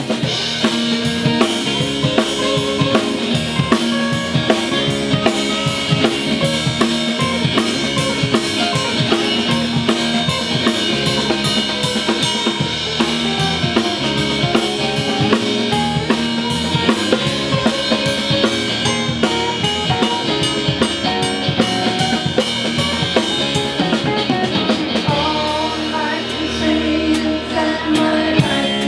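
Live band playing, the drum kit to the fore with a steady beat of bass drum, snare and rimshots over sustained pitched instruments.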